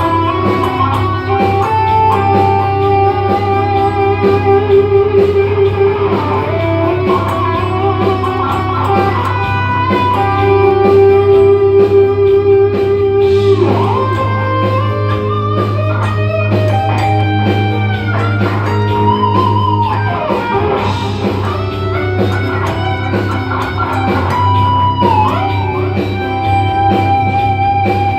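Electric guitar playing a melodic lead line of sustained notes with bends, slides and vibrato over a steady low bass note.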